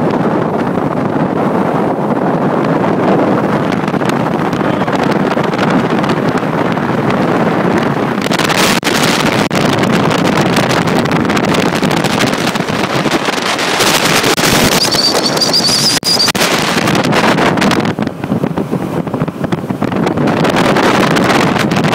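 Wind buffeting the microphone over the steady rush of a motorboat running across open water. The wind gusts harder about nine seconds in and again around fifteen seconds.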